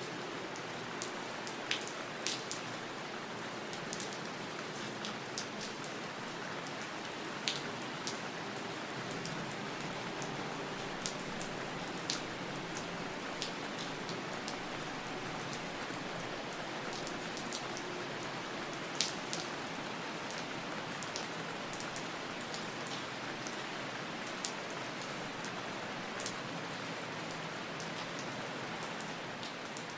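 Steady rain falling, an even hiss with scattered sharper drops striking a surface close by, a few of them louder, as about seven seconds and nineteen seconds in.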